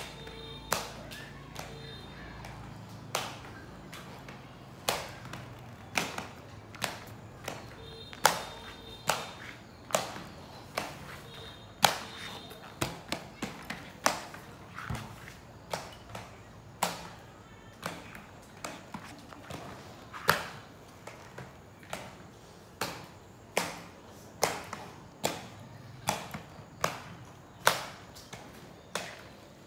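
Inline skate wheels clacking down on a concrete surface, a sharp knock with each halting step, irregular and about one a second.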